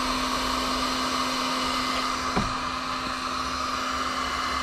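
A 1200-watt electric heat gun running steadily, its fan blowing with a low motor hum. There is one faint clink a little past halfway.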